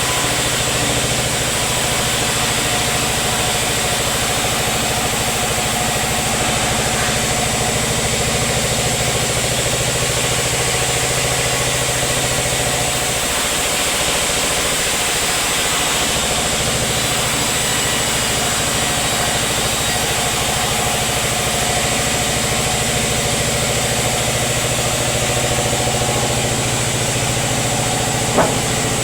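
Sawmill machinery running steadily with an engine-like hum, the low hum dropping briefly about halfway through. A single sharp click about a second before the end.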